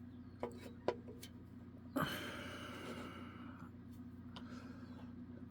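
Faint scattered clicks of lockpicking tools working in a lock, with a long breathy exhale about two seconds in over a low steady hum.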